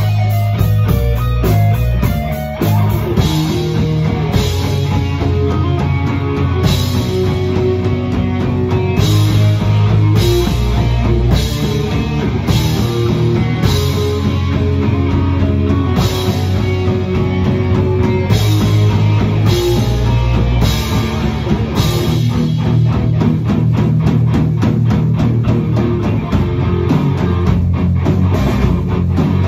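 Rock music with electric guitar and a drum kit, with a steady beat of drum hits.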